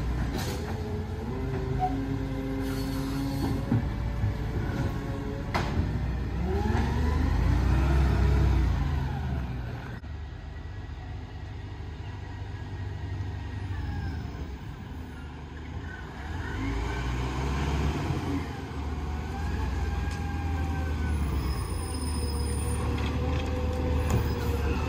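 Side-loader garbage truck's diesel engine running, its note rising and falling twice as the truck speeds up and slows. There is a sharp knock about five and a half seconds in.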